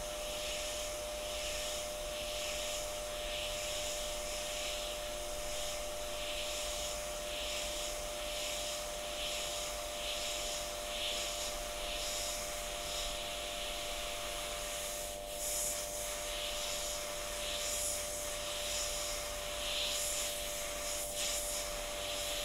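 Hot air rework station blowing onto a USB flash drive's controller chip, with an extraction fan running. A steady hum sits under an air hiss that swells and fades a little more than once a second. The hot air is melting the chip's solder so the chip can be lifted off.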